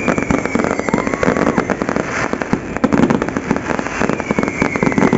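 Fireworks going off: a dense, continuous run of crackling pops and bangs, many to the second.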